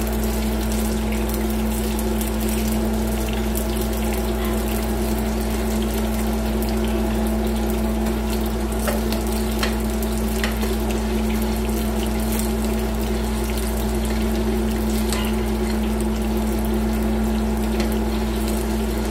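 Pork belly frying in a wok of hot oil, with scattered crackles and pops over a steady droning hum.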